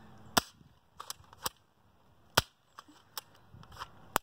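Airsoft gun fired point-blank into plastic can targets: three sharp shots about two seconds apart, with fainter clicks between them.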